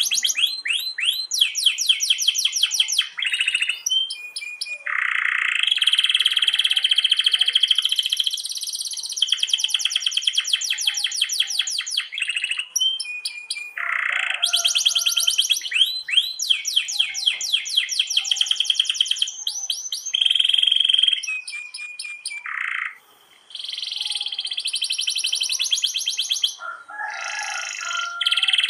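Domestic canary singing a long rolling song: fast trills and runs of rapidly repeated high notes, in phrases of a few seconds with short breaks between them.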